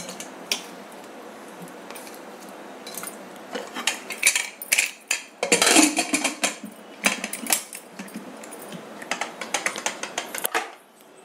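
Aluminium pressure cooker being closed: clinks, scrapes and knocks of the metal lid and handle against the pot, busiest in the middle.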